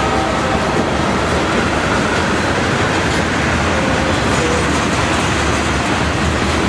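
Freight train rolling past: a loud, steady rumble and rattle of tank cars, boxcars and covered hopper cars running over the rails.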